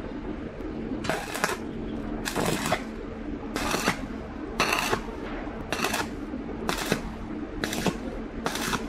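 Rhythmic scraping strokes, eight in all at about one a second, each short and harsh, over a steady low hum.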